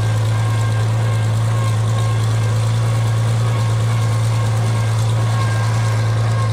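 Old farm tractor's engine running at a steady, unchanging speed as it drives, heard from the driver's seat as a strong, steady low drone.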